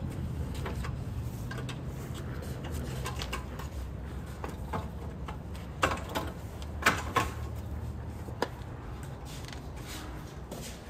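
Scattered knocks and clicks of handling and work, with the sharpest few a little past the middle, over a steady low hum.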